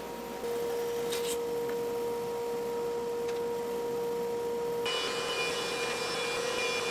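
Grizzly bandsaw running with a steady hum that grows louder as a walnut board is fed into the blade. About five seconds in the sound switches abruptly to a DeWalt two-speed thickness planer running, with a higher, whining motor sound.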